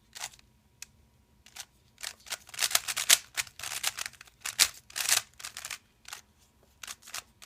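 Rubik's Cube being turned by hand: sharp plastic clicks of the layers, a few single turns, then a quick run of turns in the middle, then a few single turns again.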